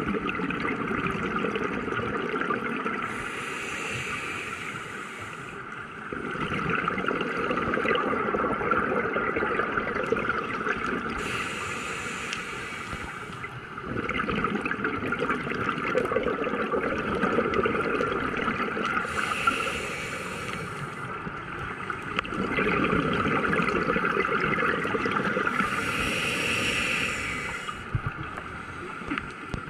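Scuba diver breathing through a regulator underwater, in a slow cycle repeated about four times: a short hiss of air on each inhale, then a long bubbling exhale.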